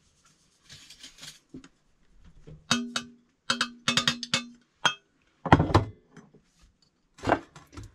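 Stainless steel saucepan knocked several times against the rim of a glass mixing bowl, clinking and ringing, as dry ingredients are tapped out of it. About five and a half seconds in comes the loudest event, a heavy knock as the pan is set down on the countertop, then a few more clinks.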